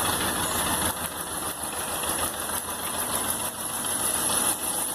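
Kadett four-cylinder engine idling just after starting, running unevenly because one cylinder is disconnected for a compression transducer test.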